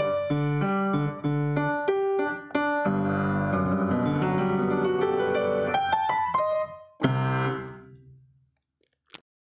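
Piano being played: a run of notes and chords ending on a final chord about seven seconds in that rings out and dies away. A single sharp click follows near the end.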